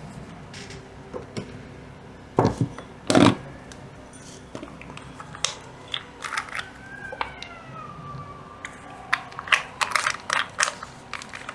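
Small clicks and taps of a paintbrush and metal photo-etch fret being worked while metal primer is brushed on, with two louder taps about two and a half and three seconds in and a quick run of them near the end. A faint wavering tone passes through the middle.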